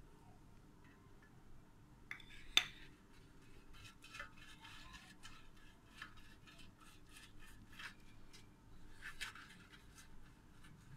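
Silicone pastry brush stroked back and forth over a metal baking tray to grease it: a run of faint brushing and light scraping strokes, with one sharp knock about two and a half seconds in.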